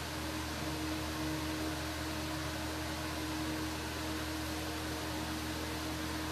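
Steady hiss with a constant low hum underneath: background room noise, no distinct event.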